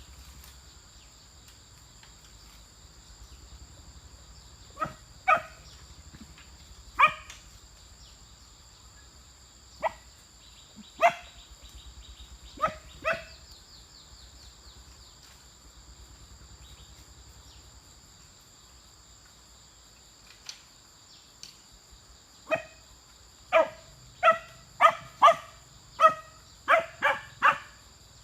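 A dog barking: a few separate barks, single or in pairs, then a quick run of barks in the last six seconds.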